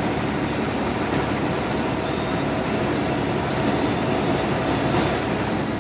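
Steady engine and road noise inside a semi truck's cab while it is driving.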